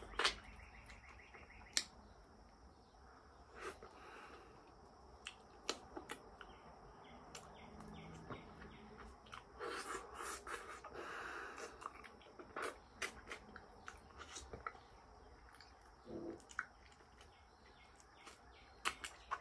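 Soft sniffing breaths as a whole durian is held to the nose and smelled, among scattered sharp clicks and ticks.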